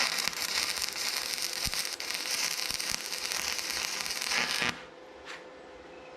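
Stick-welding arc crackling steadily on steel for about five seconds, then breaking off abruptly as the arc is stopped.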